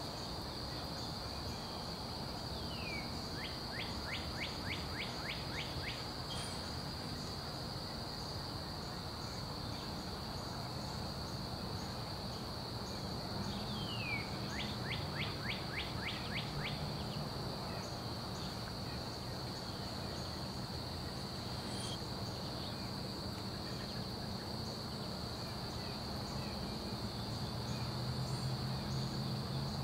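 Dawn outdoor ambience: a steady high-pitched insect drone with a low rumble underneath. A bird calls twice, about 3 and 14 seconds in, each call a downward note followed by a quick run of notes.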